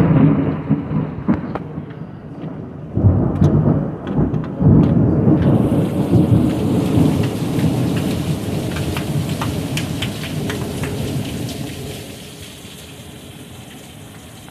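Thunderstorm: a loud clap of thunder breaks right at the start, and more thunder surges about three and five seconds in, rumbling on under heavy pouring rain. From about five seconds in the rain's hiss turns much brighter and fuller, and the thunder dies away near the end, leaving steady rain.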